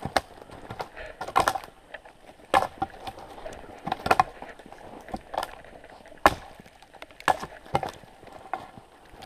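Sharp woody cracks and knocks at irregular intervals, about one a second, like dry larch branches snapping or being knocked off a trunk.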